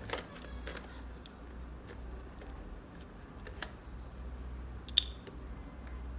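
Light clicks and taps of handling a phone and its USB cable on a workbench, with one sharp click about five seconds in, over a steady low hum.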